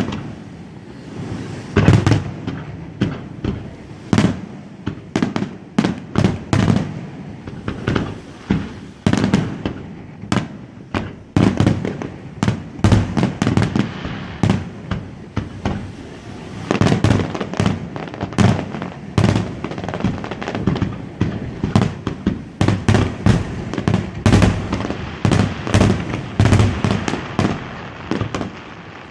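Fireworks display: a dense, irregular stream of aerial shell bursts and crackling reports, many firing in quick clusters with deep booms between them.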